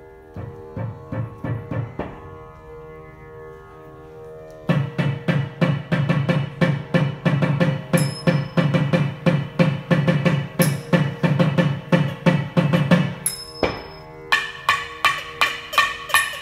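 Thavil drums playing a fast rhythmic passage over a steady drone. The strokes start soft, turn loud and low from about five seconds in, stop briefly about four-fifths of the way through, then come back sharper and brighter.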